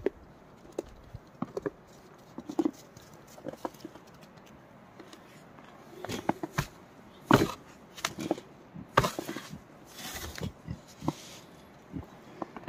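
A wild boar moving about close by: irregular footsteps, knocks and short rustling noises. The loudest come about seven and a half seconds in and again around nine to ten seconds in.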